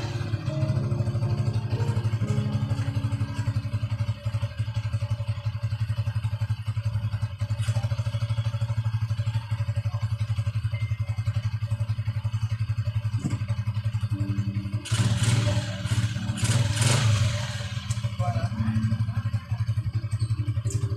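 Honda TMX 125's single-cylinder four-stroke engine idling steadily, with two short louder rushes of noise about fifteen and sixteen and a half seconds in.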